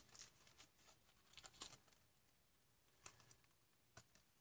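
Near silence with a few faint, soft clicks and rustles of Pokémon trading cards being handled, spread out over a few seconds.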